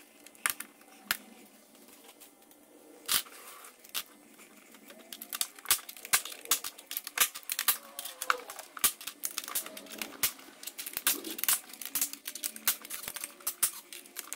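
Plastic clips of a SNOO bassinet's mesh netting clicking into the platform edge as they are pushed in by hand, with rustling of the mesh. A few single clicks at first, then a fast irregular run of many sharp clicks from about five seconds in.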